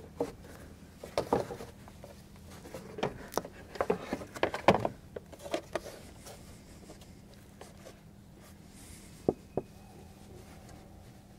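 Plastic engine air cleaner housing clattering and knocking as it is handled and pressed down to seat its mounting prongs in tight rubber grommets. A run of scattered knocks fills the first half, and two sharp knocks come close together near the end.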